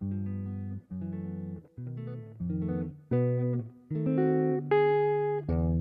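Ibanez hollow-body archtop jazz guitar played solo in chord-melody style: a run of struck chords, each ringing briefly before the next, growing louder toward the end, where a chord is held a little longer.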